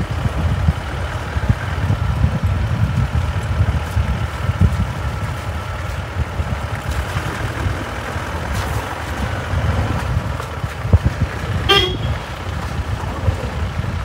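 A vehicle drives slowly along a wet road. Its engine runs under a steady, fluttering low rumble. About twelve seconds in, one brief high-pitched sound falls in pitch.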